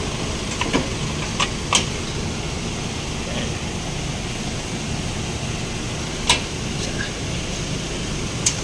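Underbody engine cover being pushed up against the car's underside and fitted with its bolts by hand: about five short sharp clicks and knocks, the loudest about six seconds in, over a steady background hum.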